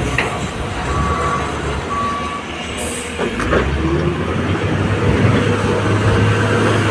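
LiuGong 848 wheel loader's diesel engine running steadily as the machine drives through mud and water, with two short beeps about a second apart near the start. The engine drone grows stronger a little past halfway as it comes forward.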